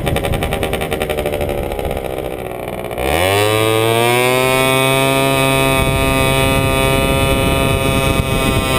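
70cc Sym Jet Euro scooter engine running low and rough for a few seconds. About three seconds in it revs up sharply as the throttle opens, then holds a steady, cow-like drone at one pitch as the scooter accelerates away. Wind noise runs underneath.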